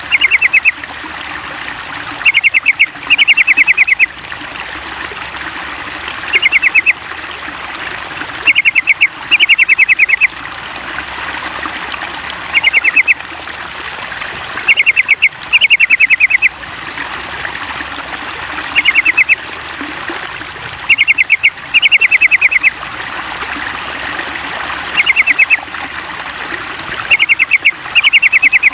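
Yellow-vented bulbul song: short bursts of quick, evenly repeated high notes, often two bursts close together, coming back about every two seconds over the steady trickle of running water. This is a lure track of trucukan song, meant to set a kept bird singing.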